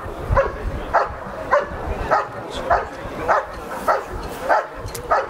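German Shepherd barking in a steady rhythm, about nine barks at roughly two a second: the hold-and-bark at the blind, barking at the hidden helper in IPO protection work.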